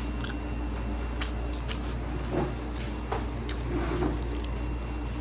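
Quiet eating sounds: wet chewing of pizza and small scattered clicks from handling food, over a steady low hum.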